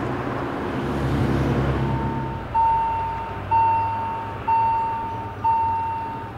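Low rumble of a train running, then from about two and a half seconds in a railway warning gong sounds about once a second, each stroke a clear ringing tone that fades away, signalling the approaching train.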